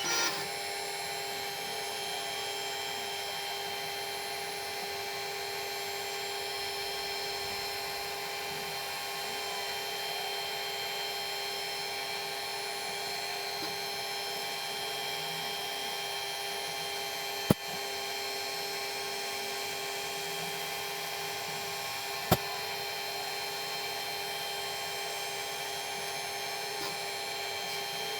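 Milling machine running steadily with a constant whine, cutting a radius on a small steel part after a cutter change. Two sharp clicks stand out, one about two thirds of the way in and another about five seconds later.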